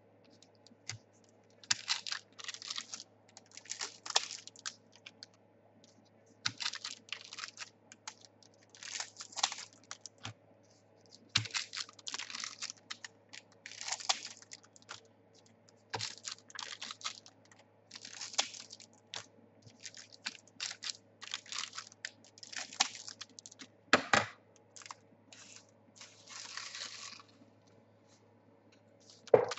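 Trading card pack wrappers being torn open and crinkled, in short crackly bursts every second or two, over a faint steady low hum.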